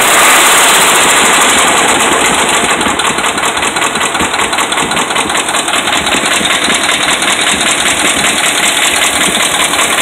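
Dodge Ram 5.7 Hemi V8 running with a loud, rapid, steady knocking from the bottom end. It is the sign of worn connecting-rod and crankshaft bearings (rod knock).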